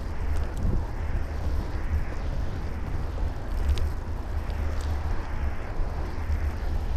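Steady low rumble of wind and road vibration on a bicycle-mounted camera riding along a cycle lane, with passing road traffic under it. A couple of short, sharp rattles come about four and five seconds in, as the bike crosses the kerbed edge of a side-road junction.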